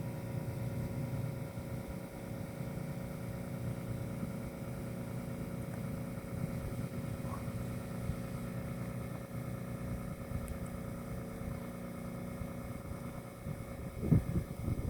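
Low, steady rumble of a distant passenger jet mixed with a constant mechanical hum, with a few bumps near the end.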